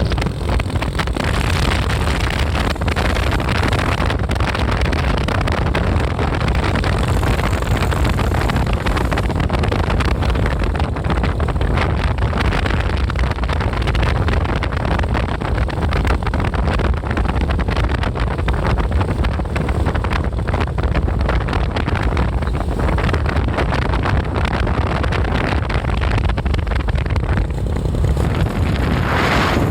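Steady low rumble of vehicle engines with wind buffeting the microphone; no horn is sounding.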